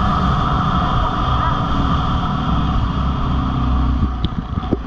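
Dirt bike engine running steadily under way, mixed with wind rush on the camera mic. Near the end the engine note drops and a few sharp knocks come through.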